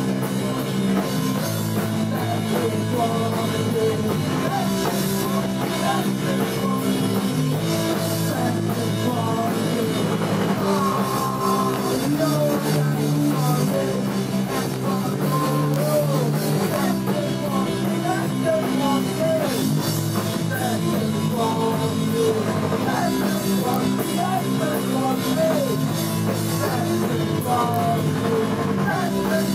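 Punk rock band playing live: electric guitar and drum kit with a man singing into the microphone, steady and loud throughout.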